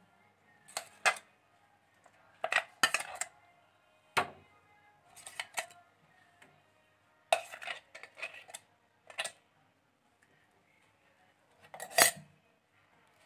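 A utensil clinks and knocks against a white bowl as food is put into it and worked. The sounds come in short clusters every second or two, and the loudest is near the end.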